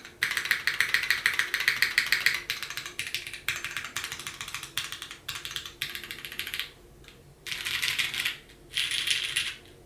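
Fast typing on a mechanical keyboard with lubed Cherry MX Purple tactile switches, GMK keycaps and an aluminum plate in a Bakeneko case: a rapid stream of keystrokes with brief pauses about seven and nine seconds in.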